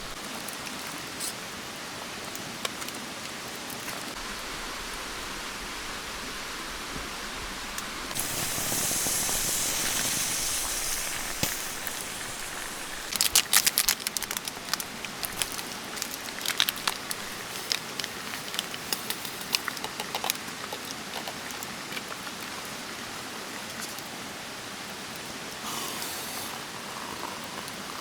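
Rain falling steadily as an even hiss. About a third of the way in, a louder high hiss lasts about three seconds. Halfway through comes a burst of sharp crackles and clicks, and more scattered ones follow.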